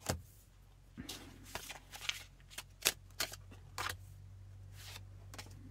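Tarot cards being dealt from a hand-held deck and laid face down on a table one at a time: a string of short card clicks and slaps, with a faint steady low hum under them from about a second in.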